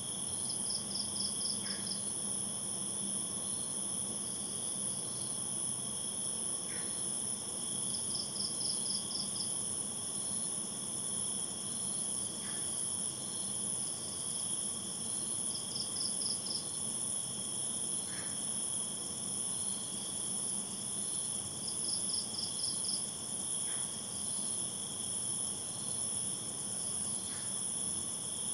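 Crickets and other night insects trilling steadily at a high pitch, with a short run of rapid chirps that repeats about every seven seconds.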